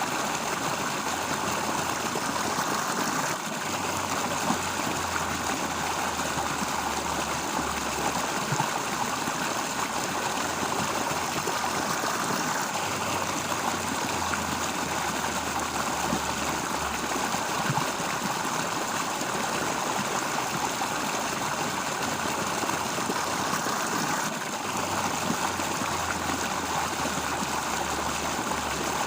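Running water flowing steadily, with a low hum that comes and goes three times underneath it.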